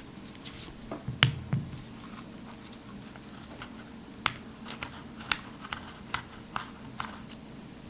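Small metallic clicks and taps from a hand driver working the grip screw of a Browning Buck Mark .22 pistol, with hands handling the gun; a couple of duller knocks come about a second in, then scattered sharp clicks every half second or so.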